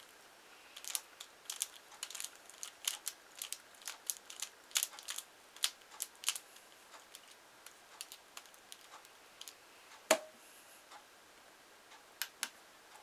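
Pyraminx being turned by hand: quick runs of sharp plastic clicks from the layers and tips snapping round, as when scrambling the puzzle. A single louder knock comes about ten seconds in, and two more clicks near the end as the puzzle is set down by the timer.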